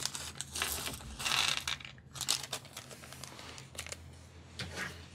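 A small plastic parts bag crinkling as it is handled, followed by scattered light clicks of small metal frame screws and standoffs being set down on a cutting mat.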